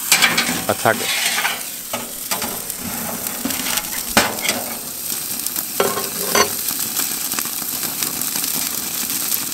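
Tomahawk steak sizzling as it sears under the glowing ceramic burners of a 1650 Fire Pro overhead grill, a steady hiss, with a few sharp metal clicks about four and six seconds in as the grill grate is moved with the lifter.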